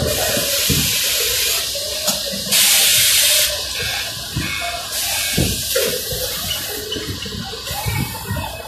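Shirt armhole press machine hissing steadily as it works, with a louder burst of hiss lasting about a second, starting about two and a half seconds in. Light knocks from the machine's moving parts come through underneath.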